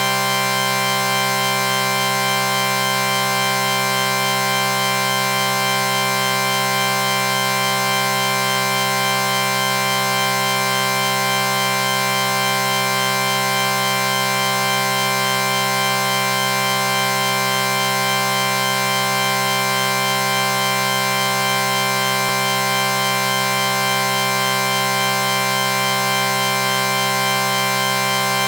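A sustained electronic "chorded" sound effect: many steady tones layered into one chord, held unchanging with no break, with a buzzy, organ-like drone.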